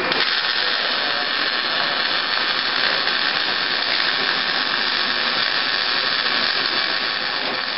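Wire-feed arc welder laying a continuous bead: the arc sizzles and crackles steadily.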